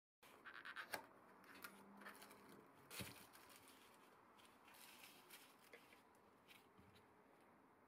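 Faint handling noise: rustling of plastic wrapping and small clicks as a little keyed drill chuck is picked up and turned over on cardboard.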